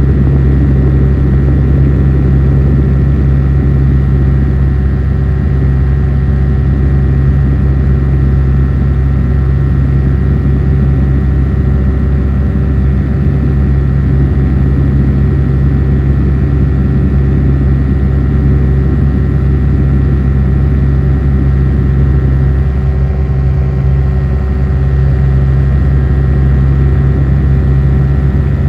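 Light aircraft's engine and propeller running steadily in level flight: a constant loud hum with several fixed tones.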